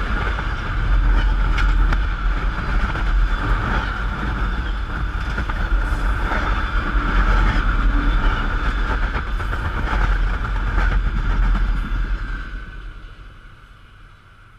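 Train rolling past at very close range, as if over the microphone on the tracks: heavy rumble and steady rail noise with scattered clacks of wheels over the rails. It fades away over the last couple of seconds.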